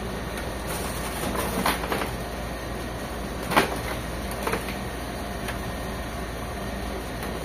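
Handling of an HP Officejet 7612 printer's plastic side cover: a few short plastic clicks and knocks, the loudest a sharp knock about three and a half seconds in, over a steady background hiss.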